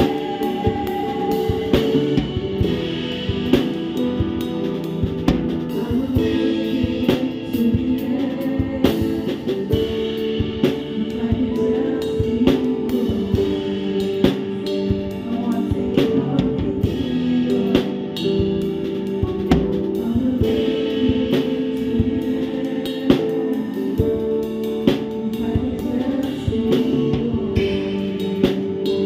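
Live worship band music with the drum kit up front: a steady beat of snare, bass drum and cymbal hits over electric guitar and held chords.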